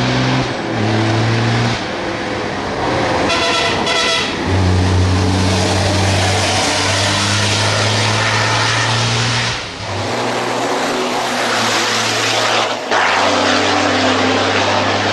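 Dakar racing truck's diesel engine pulling hard up a hill climb, its note breaking off and coming back several times with gear changes. A brief whistle sounds about four seconds in.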